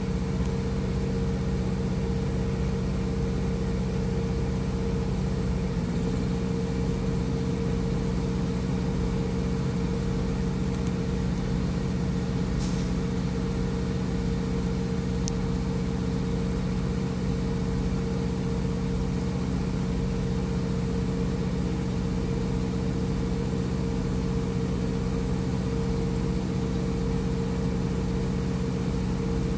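Diesel truck engine idling, a steady low drone whose tone shifts slightly about six seconds in.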